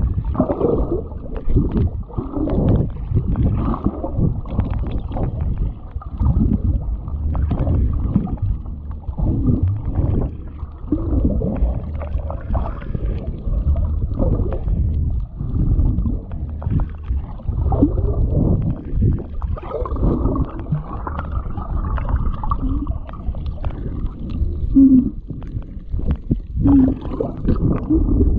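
Muffled underwater sound from a submerged GoPro: water rumbling and sloshing in uneven surges, with two brief low tones near the end.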